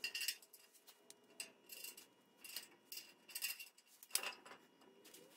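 Small steel bolts, washers and nuts clinking faintly as they are handled and fitted to a sheet-steel dethatcher frame: scattered light ticks and clicks, with a sharper click about four seconds in.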